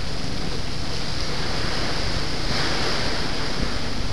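Hurricane wind and driving rain: a loud, steady rush that swells for a moment a little past halfway.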